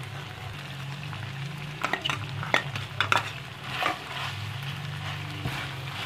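Karahi gosht sizzling in ghee in a karahi while a long metal slotted spoon stirs it. The spoon scrapes and knocks against the pan several times, most between about two and four seconds in.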